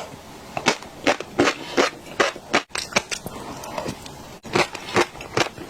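Close-miked chewing of fish roe dressed in oil: a run of crisp crunching pops, about two or three a second, with a short pause in the middle.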